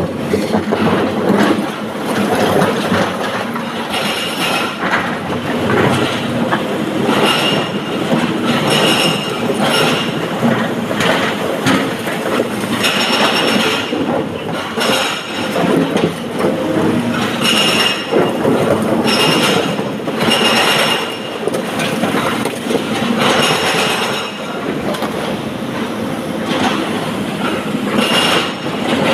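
Sany hydraulic excavator working a rock pile: the engine and hydraulics run under load while the steel bucket scrapes and clatters through broken stone. A high tone comes back every few seconds over the grinding noise.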